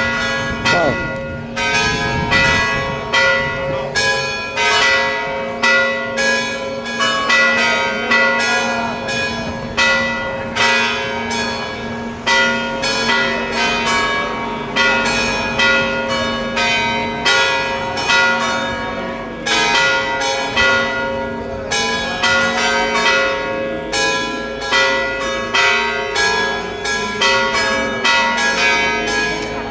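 Church bells pealing, struck in quick succession over and over, their tones ringing on and overlapping.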